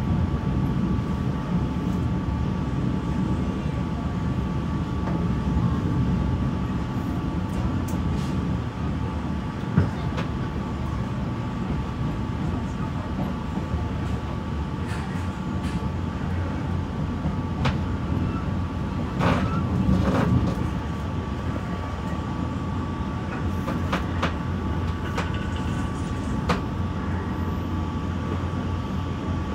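Passenger train running along the track: a steady rumble with a thin constant tone above it and scattered clicks and knocks. There is a sharper knock about ten seconds in and a brief swell in the noise around twenty seconds in.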